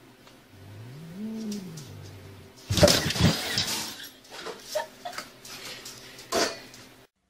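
A cat's low, drawn-out yowl that rises and falls in pitch. About three seconds in there is a loud clatter, then a few sharp knocks, as a wooden cabinet door is knocked open.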